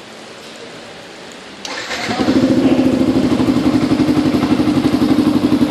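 Yamaha Fazer 150's single-cylinder four-stroke engine, breathing through an aftermarket Roncar sport exhaust, is cranked about a second and a half in after a steady background hiss. It catches almost at once and settles into a steady, evenly pulsing idle.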